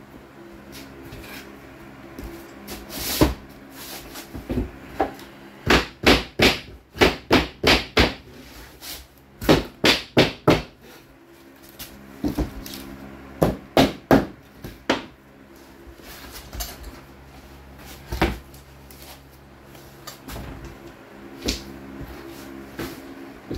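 Hammer knocking flooring planks into place: sharp knocks in quick runs of four to six, with single knocks and pauses between, over a steady low hum.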